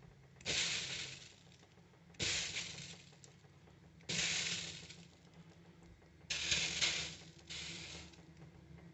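Small splashes of water hitting a very hot dosa pan (tawa) and sizzling, about five sharp hisses that each die away within about a second. Water flashing to steam like this is the sign that the pan is hot enough to make dosas.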